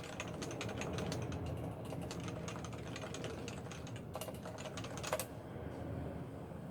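Typing on a Realforce 87U tenkeyless keyboard with 45g Topre electrostatic capacitive switches and PBT dye-sub keycaps. Quick keystrokes come in a rapid run, then thin out, with two louder strokes about four and five seconds in, and the typing stops a little after five seconds.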